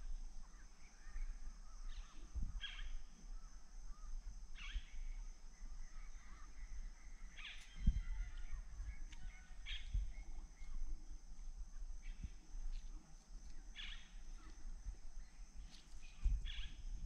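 Riverside rainforest ambience: a steady high-pitched hum with short bird calls scattered through it, and a few low knocks, the loudest about eight seconds in.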